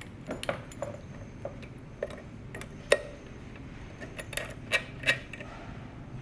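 Irregular light clicks and taps of small hard objects being handled, a few of them sharper and ringing briefly, the loudest about three seconds in and again near the five-second mark. A faint steady low hum runs underneath.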